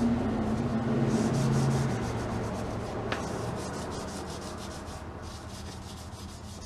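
A Scotch-Brite scouring pad scrubbing with quick back-and-forth strokes, working a stripper-softened finish off a gumball machine part; the scrubbing slowly fades, with a single sharp click about three seconds in.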